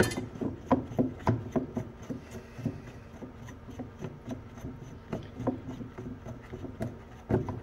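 A brass nut being turned by hand on the threaded tail of a toilet ballcock valve: a run of small irregular clicks and rubbing from the threads and the plastic tank wall, a few a second.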